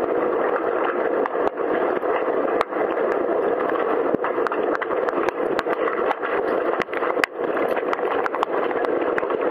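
Underwater hockey play in a pool, heard as a steady, muffled rush of water noise. Many sharp clicks and knocks come through it, several each second.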